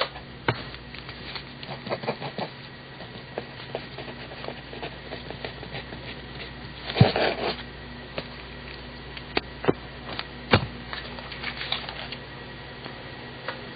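Paper Mate Write Bros. mechanical pencil with 0.7 mm lead writing on paper: irregular short scratches and taps of the lead, with a longer scratchy stroke about seven seconds in, over a low steady hum.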